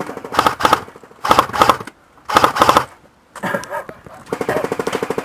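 Airsoft M249 electric gun (A&K M249 Para) firing on full auto: three short bursts of rapid clicking shots, each about half a second long, then a longer continuous burst starting about four seconds in.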